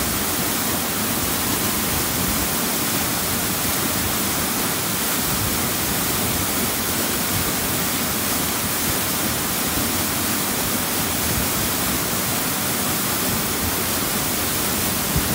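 Himalayan mountain stream rushing steadily, an even, unbroken sound of fast-flowing water.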